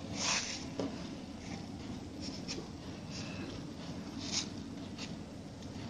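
Cloth rustling and rubbing in a few short scrapes as fingers push the gathered fabric tube of a dori along its needle, the loudest just after the start and about four and a half seconds in, over a steady low hum.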